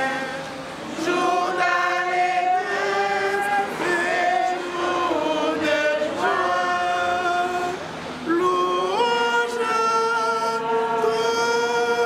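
A choir singing, with several voices holding long notes that change every second or two; one note is held for about three seconds near the end.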